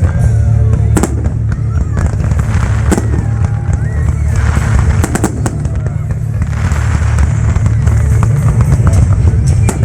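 Aerial fireworks bursting in a string of bangs and crackles, over loud music with a heavy bass and the chatter of a crowd.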